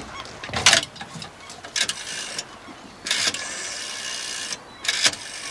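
Rotary telephone dial in a public phone box being dialled: a sharp clunk about half a second in, then the dial whirring back three times, one short and two longer, with small clicks between.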